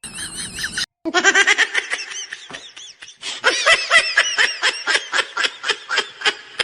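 High-pitched laughter, a run of quick pulses at about five a second, starting after a brief break about a second in.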